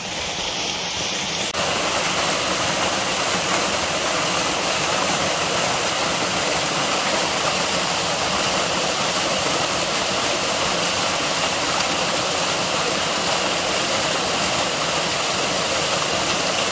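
Steady rush of a shallow rocky stream, an even hiss of flowing water that steps up suddenly about a second and a half in.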